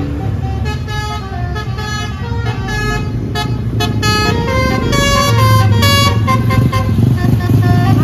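A multi-tone "basuri" telolet bus horn playing a stepping melody of short notes, over the steady hum of passing motorbike and car engines.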